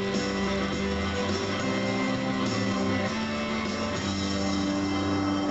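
Guitar-led background music with held, strummed chords that change every second or two.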